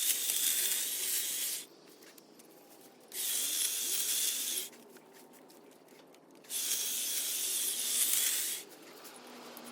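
Battery-powered Ego multi-tool with a hedge trimmer attachment, running in bursts while cutting. It is already running at the start and stops after about a second and a half, then runs in two more bursts of about one and a half to two seconds, with short pauses between.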